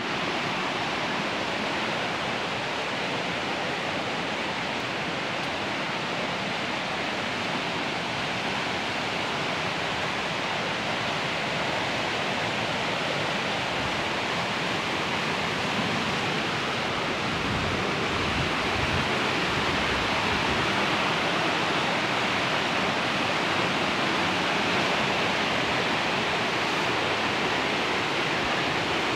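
Rain-swollen mountain stream rushing over rocks in white-water rapids, a steady full rush of water.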